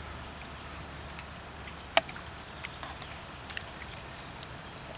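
A few sharp clicks, the loudest about two seconds in, followed by a small bird singing a high, warbling song over a faint outdoor background hiss.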